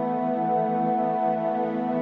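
Ambient new-age music: sustained tones holding one chord, with no beat.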